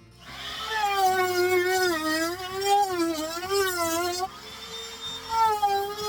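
Cordless drill-driver driving screws: a motor whine whose pitch wavers as the trigger is eased on and off, stopping about four seconds in, then a second, steadier run.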